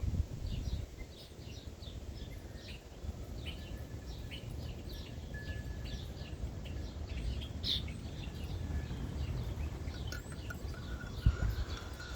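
Small birds chirping over and over in short high calls, over a low steady rumble, with one thump near the end.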